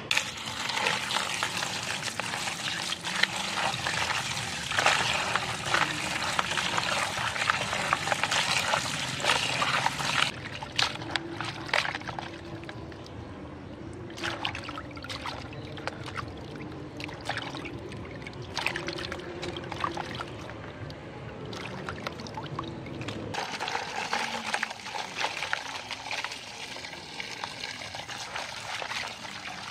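Water pouring into a plastic basin and splashing as river prawns are washed in it by hand. A steady pour runs for about the first ten seconds, then gives way to intermittent splashing with short clicks, and a steadier wash returns a few seconds before the end.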